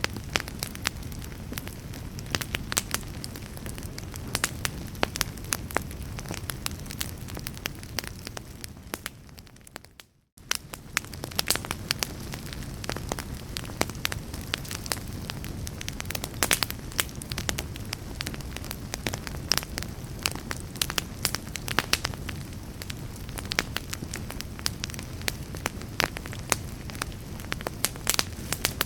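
Wood fire burning in a fireplace: a steady low rumble of the flames with frequent sharp crackles and pops from the burning wood. About eight seconds in it fades away to near silence, then cuts back in abruptly a couple of seconds later.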